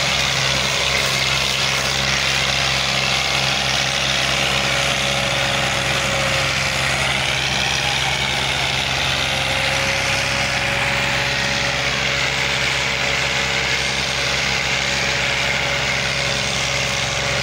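Two Massey Ferguson three-cylinder diesel tractor engines running hard and steady under heavy load: a Massey Ferguson 240 on a tow chain helps a 260 pull an overloaded trolley, enough strain to lift the 260's front wheels and make it smoke black.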